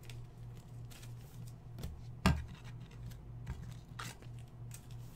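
Baseball trading cards being handled and shuffled through, cards sliding and rubbing against one another, with light clicks and one sharp tap a little over two seconds in. A faint low hum runs underneath.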